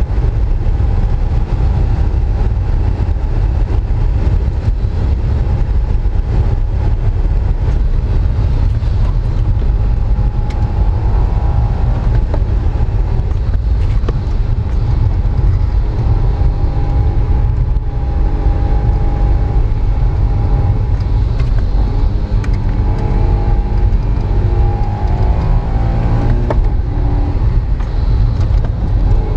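Honda S660's small turbocharged three-cylinder engine pulling hard, its revs rising and falling through the corners, over a heavy rumble of wind and road noise.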